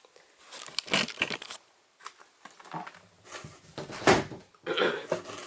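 Packaging and items being handled: scattered rustling and light knocks, with one sharper knock about four seconds in.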